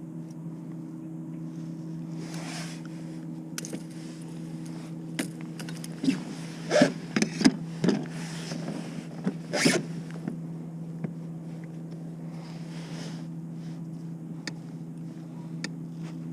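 Rustling and sharp clicks of hands handling a fish and gear in a kayak, bunched between about five and ten seconds in. Under it runs a steady low electrical hum.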